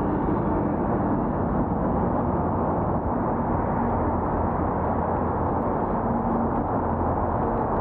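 Steady rushing wind noise on the microphone of a moving bicycle, mixed with the hum of road traffic.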